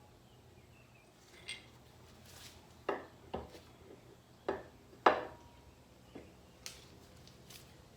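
Metal clinks and knocks from hand tools on bolts, about six separate strikes spaced irregularly, the loudest about five seconds in, during reassembly of the tractor's PTO housing.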